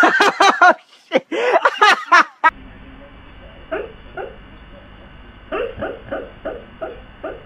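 For the first two seconds, a person's loud excited shouts. Then a husky asleep on a couch lets out a string of short yips and woofs in its sleep, several a second.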